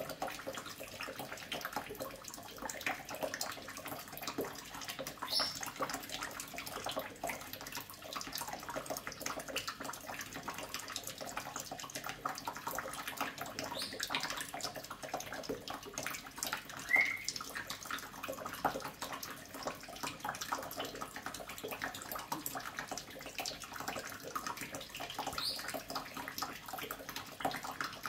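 Kitchen tap running into a sink, with steady splashing and spattering as a cockatoo bathes under the stream. A brief high squeak about halfway through.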